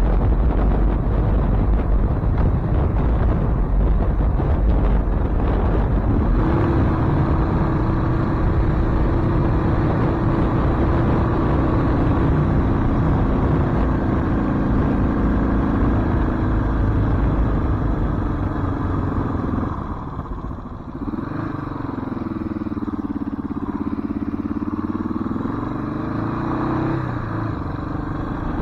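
1993 Suzuki DR650's single-cylinder four-stroke engine running as the motorcycle rides along, with heavy wind rumble on the microphone for the first few seconds. About twenty seconds in the engine note drops, then falls and climbs again as the bike slows and picks up speed.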